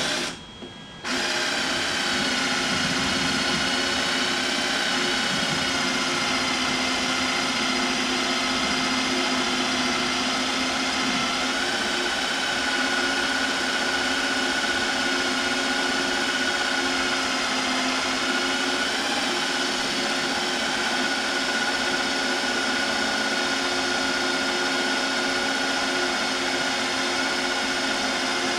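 Welding arc on a steel exhaust bracket: a short tack at the start, then about a second in one continuous bead with a steady, even buzz whose pitch steps up slightly about twelve seconds in.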